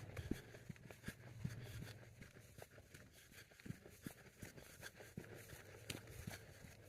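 Faint footsteps on a dirt and rock trail: light, irregular scuffs and clicks.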